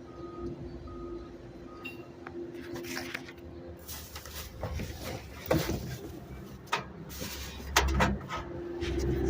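A run of sharp clinks and knocks, the loudest about five and a half seconds in and again near eight seconds, over a steady low hum.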